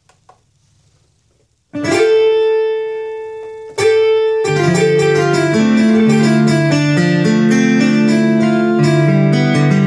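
Electronic keyboard music. After a couple of faint key clicks, a chord rings out and fades, a second chord follows about two seconds later, and then a steady cha-cha-cha tune with a bass line begins.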